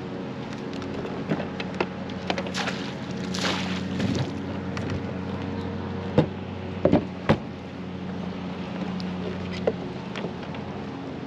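A small boat motor running with a steady hum as the fishing kayak moves over the water. Several sharp knocks, loudest about six to seven seconds in, as gear bumps against the kayak.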